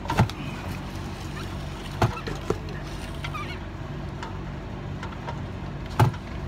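A dog bone socket wrench clinking on an oil pan drain plug as it is loosened: four sharp metal clicks, two of them close together about two seconds in and one near the end. A steady low hum runs underneath.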